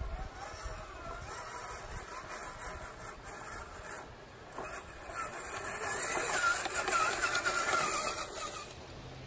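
RC4WD TF2 scale crawler truck's electric motor and gearbox whining as it drives the trail, rising in pitch and getting louder about halfway through, then cutting off suddenly near the end.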